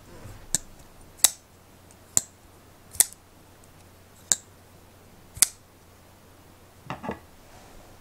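Rike Knife Knight flipper folding knife being flipped open and shut by hand: six sharp metallic clicks about a second apart as the blade snaps into place. Near the end, a short clatter as the knife is set down on a wooden table.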